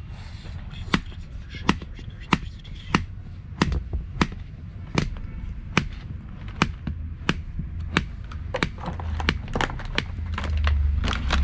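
A steady run of sharp knocks, about one and a half a second, from a cook's tool striking at a street-food stall, over a low traffic rumble that swells near the end.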